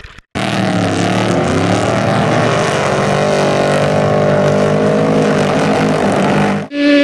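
Trophy truck race engines running hard as two trucks race side by side on sand, a steady, slightly wavering engine note over tyre and dirt noise. It cuts off abruptly shortly before the end.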